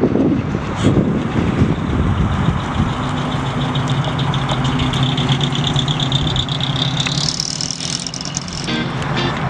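A 1969 Datsun 2000 roadster's 2.0-litre U20 four-cylinder engine running as the car drives past and away. The sound is rough and gusty at first, then settles to a steady note about two and a half seconds in.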